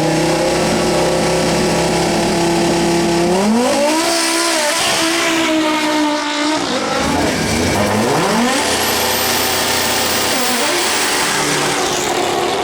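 Turbocharged five-cylinder engine of an Audi quattro hill-climb race car at full load. Its note holds steady for about three seconds, then rises and falls several times as the car accelerates and shifts gears.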